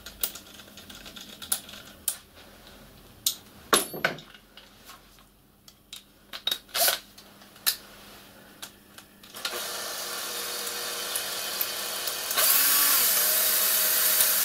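Scattered clicks and knocks from handling a metal band and its screw. About two-thirds of the way in, a cordless drill-driver starts running steadily, driving a small screw into the brass boiler band. It gets louder for the last two seconds and stops suddenly.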